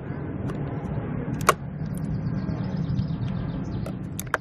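Nerf Super Soaker Freeze Fire water blaster firing: a steady rush of spraying water lasting about four seconds, with a sharp click about a second and a half in.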